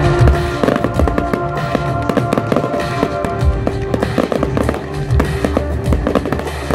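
Fireworks going off in a rapid, irregular run of sharp bangs and crackles, over loud music.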